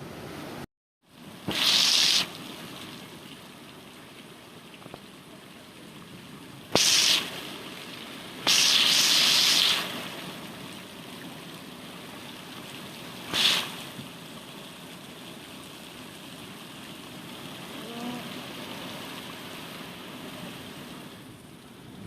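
Strong storm wind blowing with a steady rushing hiss, broken by several loud, sudden gusts of rushing noise, the longest lasting about a second and a half.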